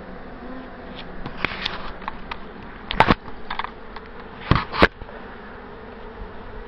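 Honey bees buzzing around an opened hive, a faint steady hum. A few sharp knocks and rustles cut through it, the loudest about three seconds in and two close together a little before the five-second mark.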